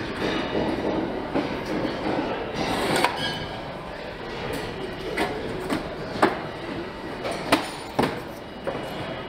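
Workshop noise on a car production floor: a steady background din with sharp metallic knocks and clanks every second or two.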